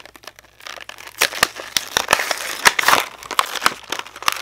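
Plastic blister pack being pulled and torn away from its cardboard backing card: a run of crackling, crinkling plastic and sharp snaps, densest in the middle and thinning out near the end.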